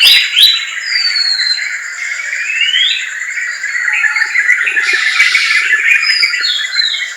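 Forest birds singing and calling together: a dense, continuous chatter of chirps with clear whistled notes sliding down and up over it.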